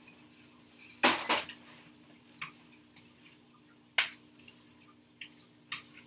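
Dishes and cooking utensils clinking and knocking: two loud knocks close together about a second in, then a few single sharper clicks, over a steady low hum.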